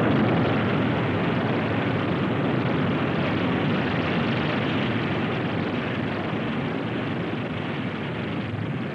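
Corporal missile's acid-aniline liquid-fuel rocket motor firing as the missile lifts off and climbs: a steady rushing roar that slowly fades.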